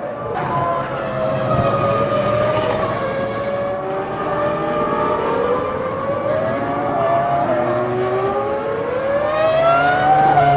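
Several 2000-season Formula One cars' 3.0-litre V10 engines screaming at high revs, their overlapping notes sliding up and down through gearshifts, with one note climbing steadily near the end as a car accelerates.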